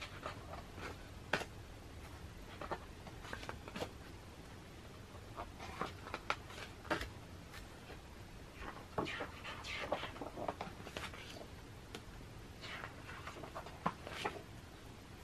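Pages of a large photobook turned by hand: the paper rustles and brushes in short scratchy bursts, with small taps, several times over.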